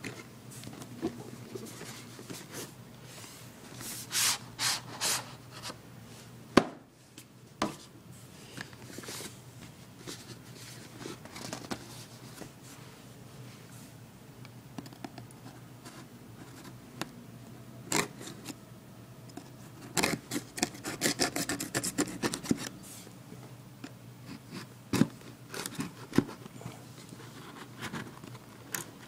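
Packaging being handled and opened by hand: rubbing and scraping of cardboard and plastic, with scattered clicks and taps and a quick run of rustling clicks about twenty seconds in.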